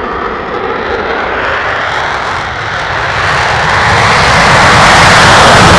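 F-22 Raptor's twin Pratt & Whitney F119 jet engines at full afterburner on a takeoff roll and lift-off. The jet noise grows louder and more hissing as the aircraft draws near, reaching its loudest near the end.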